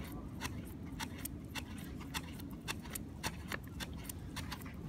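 Primer bulb on a two-stroke petrol strimmer being pressed over and over, making short clicks about three times a second. Each press pushes petrol back up into the carburettor to prime it for starting.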